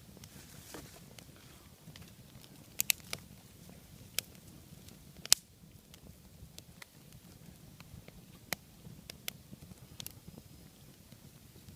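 Log-cabin campfire burning with a low steady rumble and scattered sharp pops and crackles from the burning wood; the loudest snap comes a little over five seconds in.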